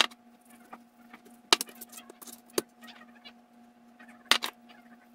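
Seasoning and handling raw beef short ribs: a glass shaker jar with a metal lid is shaken over the meat, giving several sharp clicks and knocks, a close pair near the end, with small rustles between. A faint steady hum runs underneath.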